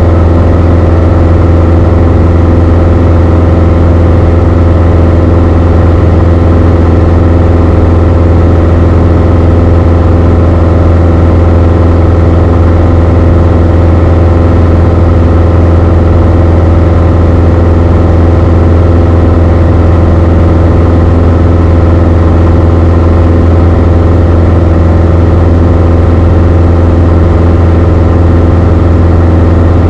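Beechcraft Sundowner 180's four-cylinder Lycoming O-360 engine and propeller droning steadily in flight, heard loud from inside the cockpit.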